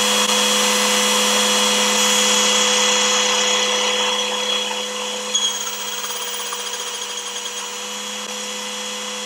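A small motor running steadily: a whir with a constant low hum, a little quieter from about five seconds in.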